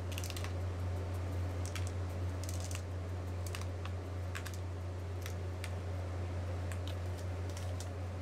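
Sprinkles rattling in a shaker bottle, shaken over the ice cream in short bursts of small clicks that thin out toward the end. Under them runs the steady low hum of the rolled-ice-cream machine.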